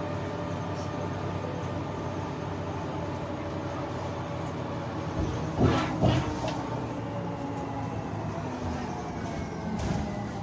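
Ride inside a moving tram: a steady electric motor hum over the rolling rumble, with two loud knocks about halfway through and a faint high whine falling gently near the end.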